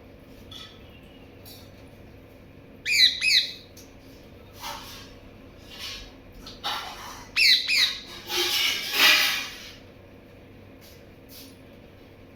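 Pet parrot calling: pairs of shrill, sharply falling screeches about three seconds in and again about seven and a half seconds in, with harsher, rasping squawks between and after them.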